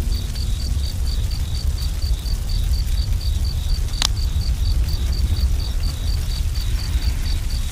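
Crickets chirping steadily, about five chirps a second, over a low rumble, with one sharp crack about four seconds in.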